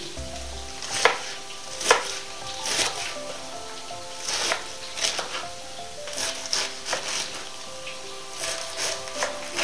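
Knife chopping salad vegetables on a cutting board in irregular strokes, with pans sizzling faintly underneath and background music playing.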